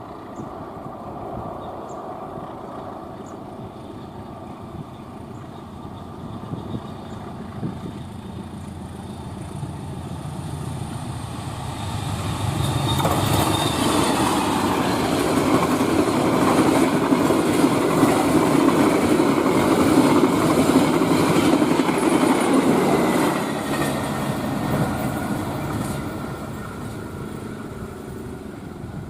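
Passenger train passing at high speed on straight track. Its sound builds up over several seconds, is loudest for about ten seconds as the carriages go by, and then fades away.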